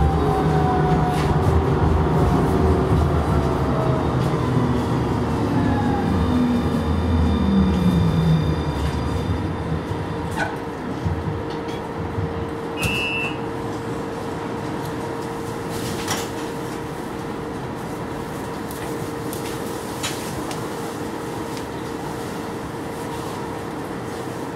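Tram's electric traction motors whining down in pitch as it brakes to a halt over the first several seconds. Then a quieter, steady hum while it stands, with a few clicks and a short beep.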